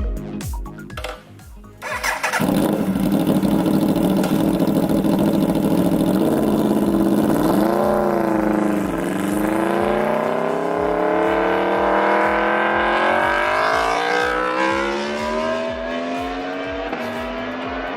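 Aprilia 65-degree V4 superbike engine, 999 cc, running with a deep exhaust note. About eight seconds in it gives a quick rev blip. The revs then climb steadily for about five seconds and drop back down.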